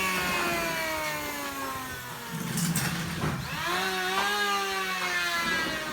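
Electric power tool motor running with its pitch sinking slowly over about two seconds, dipping, then speeding up again after about three and a half seconds and running steady.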